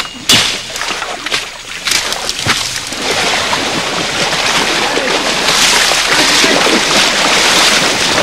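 Water splashing and sloshing as a heavily loaded wooden boat is forced through swamp water, with a few sharp knocks against the hull in the first seconds, then steady loud splashing from about three seconds in.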